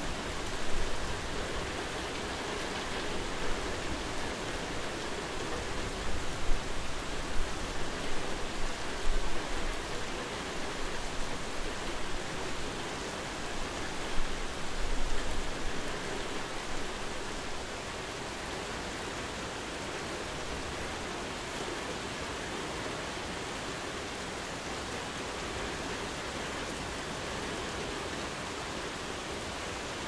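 Medium-intensity rain falling steadily, an even hiss of many drops, with a few sharper, louder drop hits in the first half.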